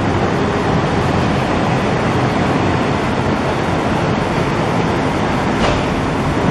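Steady, loud machinery noise from a roller heat-transfer printing line running in the workshop, an even rumble and hiss with no rhythm, and a brief click about five and a half seconds in.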